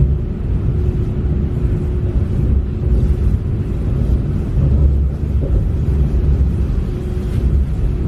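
Small mountain river flowing: a steady low rushing rumble of water, with little hiss in the highs.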